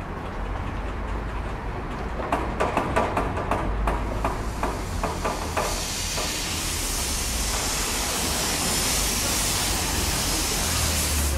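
Small narrow-gauge steam locomotive coming slowly up close, with a run of irregular knocks and clanks, then a loud steam hiss from about halfway in that cuts off suddenly at the end.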